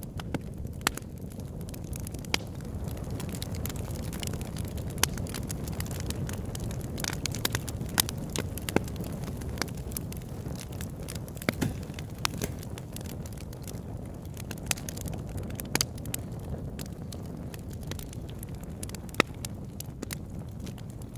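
Campfire burning with a steady low rumble and frequent sharp, irregular crackles and pops, a few louder than the rest.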